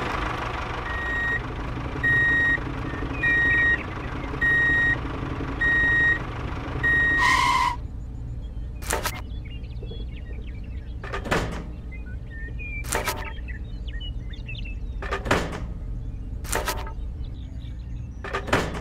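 A steady vehicle hum with a reversing-alarm beep repeating about once a second, which stops about eight seconds in. Then come single sharp knocks every second or two as bamboo sticks are set down on a small trailer.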